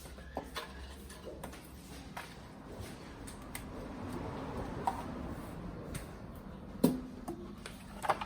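Scattered light clicks and knocks, with a sharper, louder knock about seven seconds in and another just before the end.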